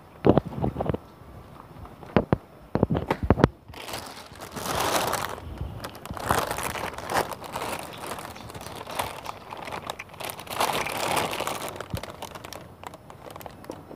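Plastic garbage bag rustling and crinkling in long swells as it is pulled and tucked over a loaded plastic bike crate, after a string of sharp knocks in the first few seconds as gear is settled into the crate.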